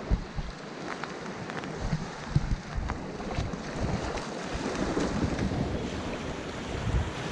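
Small waves washing onto a sandy shore, with wind buffeting the microphone in gusts. Two dogs splash through the shallow water, with a few short sharp splashes.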